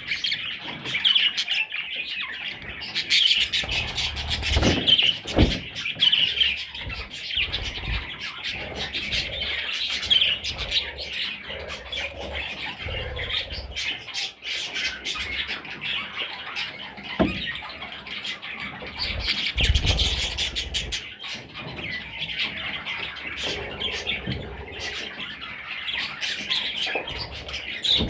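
Budgie chicks chirping and squawking in a continuous high chatter. A few knocks or bumps come about four seconds in and again around twenty seconds in.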